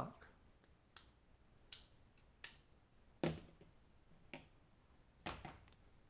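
Sharp, separate clicks from a Civivi Altus button-lock folding knife being handled as its open blade is closed, about half a dozen spread over several seconds, the loudest about a third of the way in and near the end.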